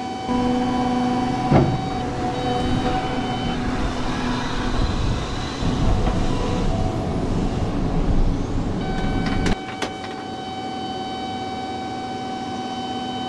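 Cat 323 hydraulic excavator working a slope: a steady machine hum with fixed tones. From about half a second in until about nine and a half seconds it is louder and rougher as the bucket cuts the soil, with a sharp knock near the start. It then drops suddenly back to the steady hum, with a couple of light clicks.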